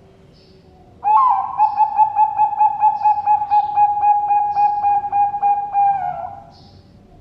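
Zebra dove (Bangkok perkutut) cooing: about a second in, one long run of rapid pulsing coo notes on a single steady pitch, about four a second, lasting around five seconds before it fades.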